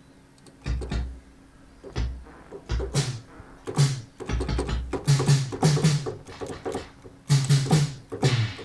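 Prototype analog synthesizer in drum-kit mode, played from a keyboard: single synthesized drum hits. Deep kick thumps come first, then pitched drum hits and bright hissy cymbal-like hits, coming quicker in the second half.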